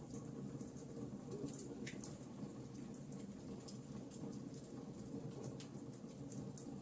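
Wood fire crackling in a fireplace: small, irregular pops and ticks over a low, steady rumble.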